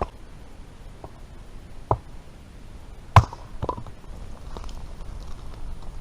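A few sharp knocks at irregular intervals, the loudest two about two and three seconds in, with fainter ones in between.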